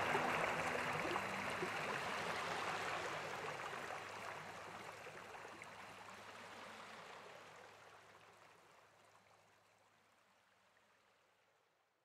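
Small sea waves washing onto a sandy shore: a steady wash of water noise that fades away gradually, dying to silence near the end.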